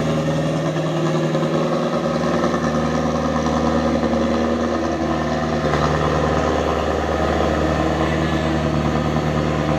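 Diesel engine of a Mitsubishi Canter truck fitted with a Fuso engine, running at a steady speed with slight changes in pitch.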